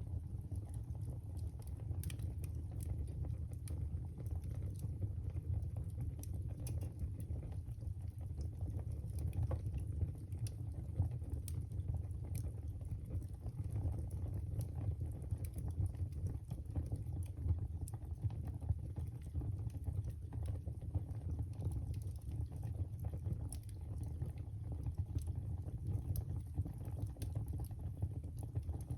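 Wood fire burning in a fireplace: a steady low rumble of the flames with scattered sharp crackles and pops throughout.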